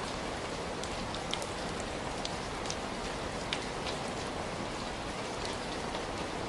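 Heavy rain falling steadily, a dense hiss with scattered sharp drip and drop ticks on surfaces.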